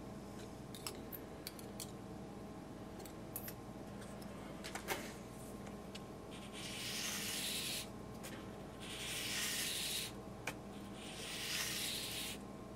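Light clicks and taps of a glass facing gauge and steel feeler gauges being handled, then a white-oak saxophone mouthpiece rubbed across sandpaper on a granite surface plate in three long sanding strokes, sanding its crooked table and facing flat.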